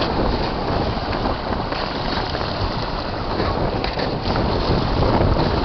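Steady wind noise buffeting the microphone, with choppy water washing around the boat.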